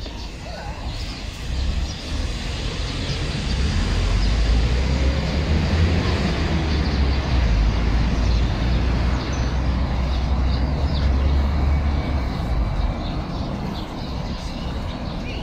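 Outdoor city ambience dominated by a deep rumble that builds over the first few seconds and eases near the end.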